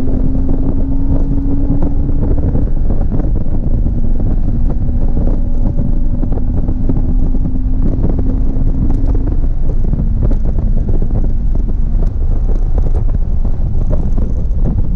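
Porsche Boxster S (986) 3.2-litre flat-six engine under load at track speed, its note climbing slowly and falling back twice, as at gear changes, over heavy wind buffeting on the microphone and road noise.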